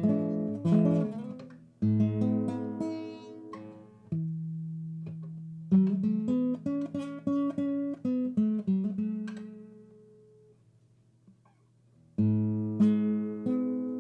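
Acoustic guitar music: strummed and plucked chords that fade out about ten seconds in, with a brief near-silent pause before the strumming starts again near the end.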